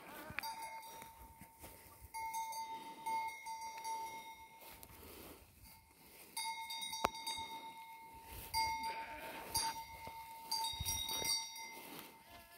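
Metal bell on a grazing sheep clanking in about four bursts of ringing, with short pauses between them as the animal moves and feeds.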